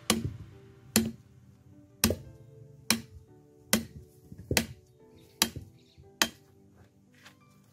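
Machete blade chopping into a freshly peeled wooden pole, eight sharp strikes about one a second, as the wood is hewn into a cooking stick. Background music plays under the strikes.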